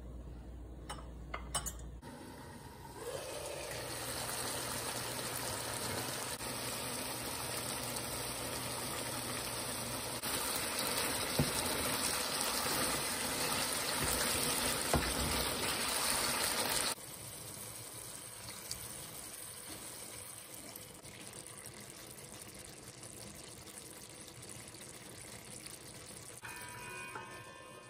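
Chicken curry sizzling in a frying pan while it is stirred, a steady hiss that grows louder about ten seconds in, then drops suddenly to a softer sizzle.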